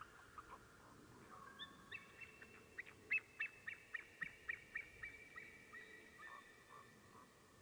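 White-tailed eagle calling: a faint, rapid series of short, high calls, about three to four a second. It starts about two seconds in, is loudest around the middle and trails off near the end.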